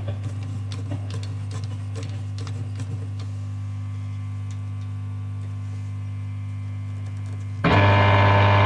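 Valve radio console's loudspeaker giving a steady low mains hum between stations as the dial is turned, with faint scattered clicks in the first few seconds. Near the end a much louder, noisy signal comes in suddenly.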